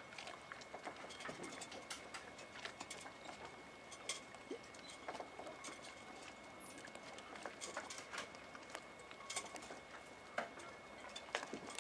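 Faint, irregular small clicks and taps from sailboats lying at anchor in calm water, spaced unevenly with no steady rhythm.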